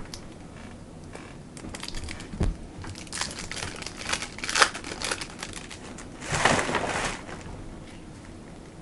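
Trading-card pack wrapper crinkling and tearing as it is opened by hand. There are irregular crackles and short rips, with a longer tear about six and a half seconds in.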